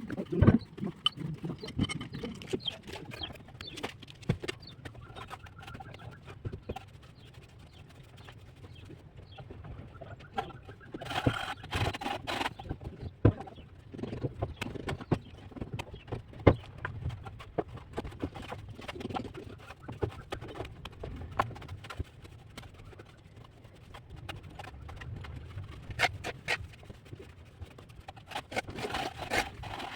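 Hand plastering with a trowel on a brick wall: irregular taps, slaps and scrapes of the trowel working cement-sand mortar, with short bouts of scraping about eleven seconds in and again near the end.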